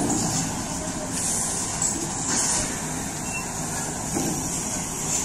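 Heavy diesel engine idling steadily, with a few short high air hisses.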